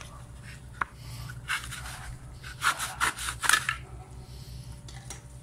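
Handsaw cutting through a pallet board: a run of short back-and-forth strokes, coming thickest in the middle stretch.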